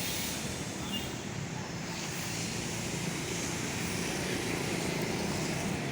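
Steady road-traffic noise with a heavy vehicle's engine running.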